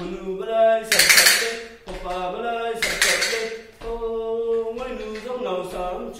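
A man singing a Wancho folk song in long held notes, accompanied by the khalak, a bamboo clapper from Arunachal Pradesh, which clatters twice in loud rattling strokes, about a second in and about three seconds in.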